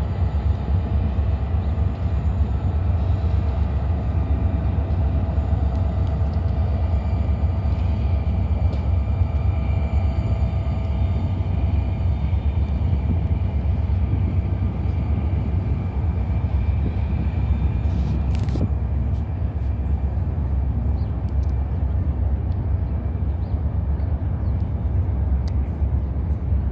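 Slow CSX freight train rolling past, heard as a steady low rumble with faint steady tones over it. There is one short sharp click about eighteen seconds in.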